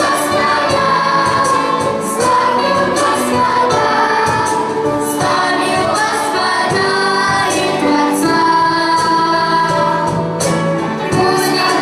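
A choir of children and women singing a song over instrumental accompaniment, with light percussion hits.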